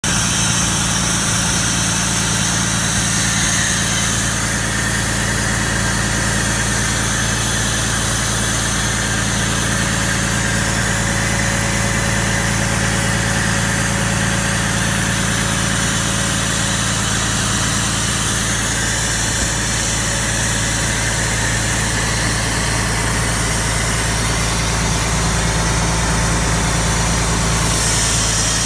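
Mobile nitrogen compressor station running steadily at a constant speed, with an even low engine hum.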